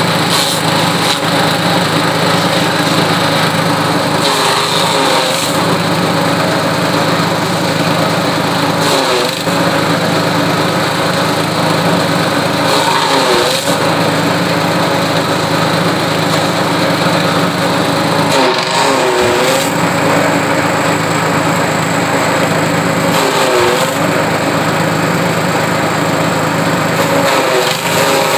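Small petrol engine driving a grass chopper, running steadily at high speed while grass is fed through the cutter. Its note dips briefly about five times and recovers each time, as bunches of grass load the blades.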